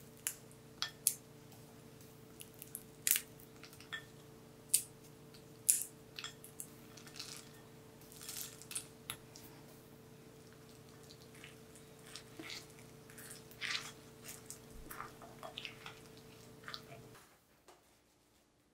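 Nuts tipped into sticky bread dough in a glass bowl and stirred in with a metal spoon: sharp clicks of nuts and spoon against the glass, several loud ones in the first few seconds, then softer scraping and squishing of the dough. A low steady hum runs underneath and stops near the end.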